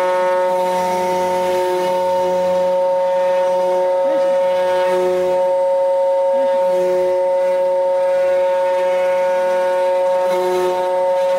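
CNC router running: a steady high whine from the spindle, with lower motor tones starting and stopping every second or so as the machine moves.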